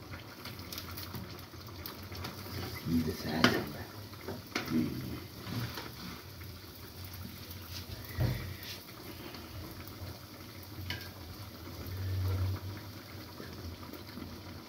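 Stew sizzling and bubbling in a frying pan on a gas stove, with a few sharp clinks of metal utensils.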